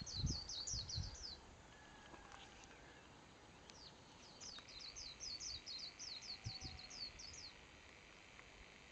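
A songbird singing a rapid string of high, short, down-slurred notes, about six a second: a short phrase at the start and a longer one from about four seconds in. A few low thumps sound in the first second.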